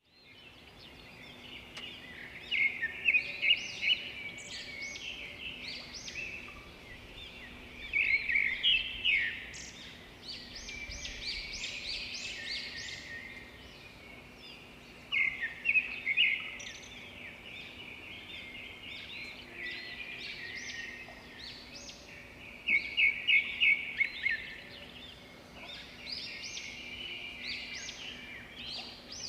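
Several small birds chirping and twittering continuously, with loud bursts of quick repeated chirps about every seven seconds.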